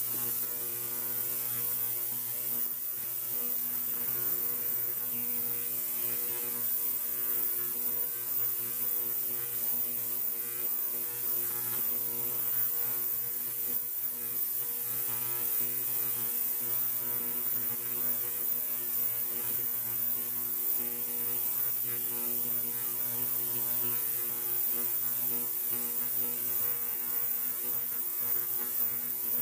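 An electric machine running with a steady mains hum and a strong high hiss. It switches on at the start and holds unchanged throughout.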